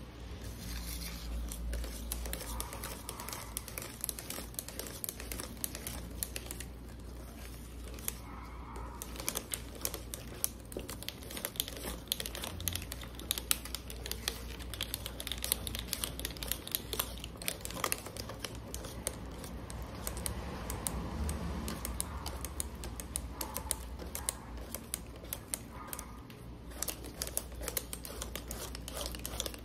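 Cake batter being mixed by hand in a bowl: a utensil clicking rapidly and unevenly against the bowl as it works through the thick flour-and-milk-powder batter.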